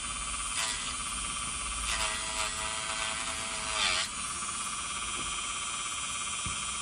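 Dremel rotary tool running steadily with a high whine, cutting into old rubber that has gone hard as a rock. Its tone wavers and sags as it bites, once about half a second in and again from about two to four seconds.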